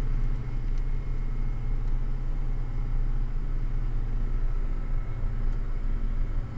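Diesel engine of a heavily loaded rock truck pulling at full throttle while the truck crawls up a grade, heard from inside the cab as a steady deep rumble.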